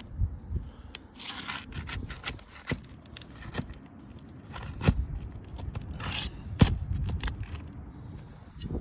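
Nails being pried out of asphalt roof shingles: irregular scraping of metal against the shingles, with scattered sharp clicks.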